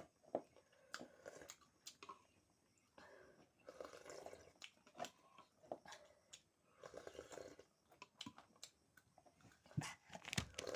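A person chewing and biting while eating chicken momos and soup, in short irregular bouts mixed with small sharp clicks.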